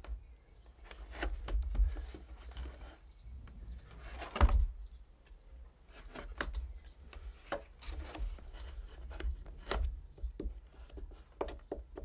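A small knife paring off the sharp points of a wooden trug's boards at the rim: a run of short, irregular slicing cuts and scrapes in wood, with one louder cut about four and a half seconds in.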